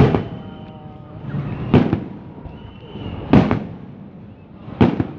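Aerial fireworks shells bursting: four loud booms about a second and a half apart.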